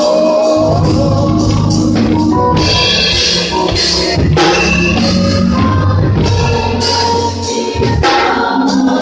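Live gospel music with singing, played with drums, tambourine and other band instruments.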